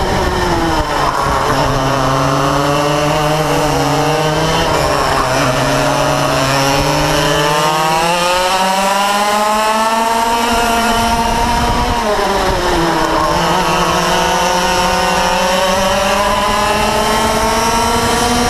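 Yamaha KT100 two-stroke kart engine at race revs, heard onboard. The revs drop as the kart slows for a corner about a second in and again around twelve seconds in, then climb steadily back up on the straights.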